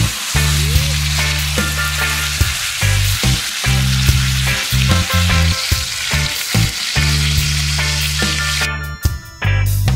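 Bone-in rib steak searing in hot fat in a cast-iron skillet: a steady sizzle that drops away about nine seconds in. Background music with a deep bass line plays underneath.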